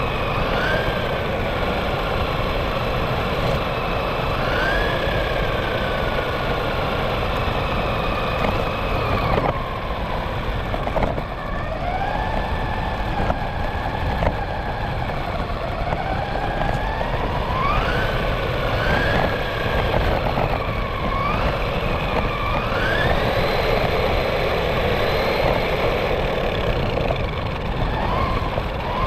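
RC car's motor whining, its pitch repeatedly rising and falling as the car speeds up and slows, over a steady rumble of the wheels rolling on pavement. Heard up close from a camera mounted on the car.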